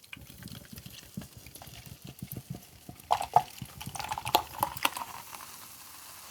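A person drinking a carbonated drink, with gulping, swallowing and liquid sounds that are loudest between about three and five seconds in.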